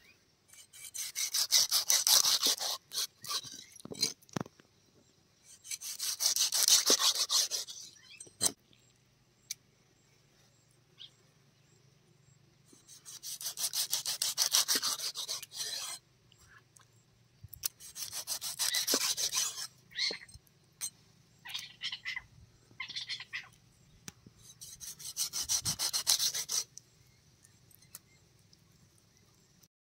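A large knife blade scraped rapidly back and forth over the skin of tuna steaks on a wooden chopping block, in five bursts of a couple of seconds each, with a few light knocks of the blade on the board between them.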